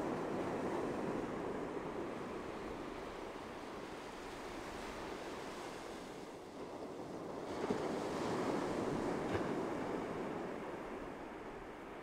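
Ocean surf breaking on a beach, a steady wash that swells twice: once at the start and again about eight seconds in.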